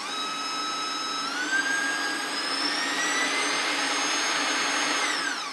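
KitchenAid KV25G 6-quart stand mixer's newly fitted 230 V motor running with no bowl or beater, being tested at its speeds. Its whine steps up in pitch about a second in as the speed lever is moved, climbs steadily higher, then falls away near the end as it is slowed and switched off.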